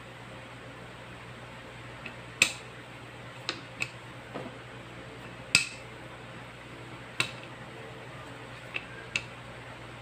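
A wooden rolling pin and plastic chopping board clacking while pie-crust dough is rolled out, about seven sharp knocks at uneven spacing. The loudest come about two and a half and five and a half seconds in.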